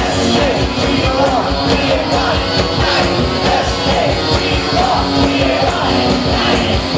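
Rock band playing a loud, fast song with a driving, even beat.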